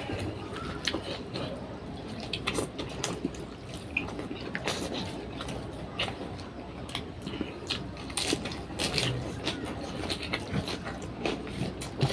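A person chewing and eating food close to the microphone, with many irregular wet smacks and mouth clicks.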